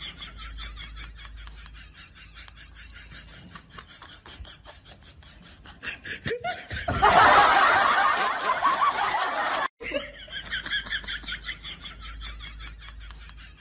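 Snickering laughter in quick, evenly pulsed bursts. About seven seconds in, a loud rush of noise swamps it and cuts off suddenly just before the ten-second mark, then the laughter starts over.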